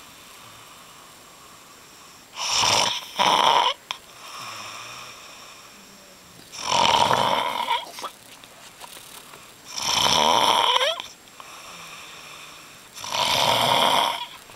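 A sleeping man snoring loudly: four loud snores roughly every three to four seconds, the first broken into two short snorts, with quieter breaths between them.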